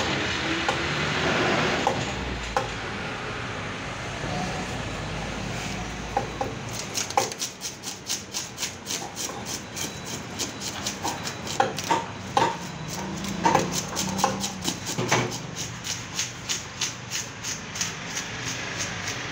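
A knife scraping the scales off a red snapper on a wooden block in quick, regular strokes, which begin about a third of the way in. A low steady hum runs underneath.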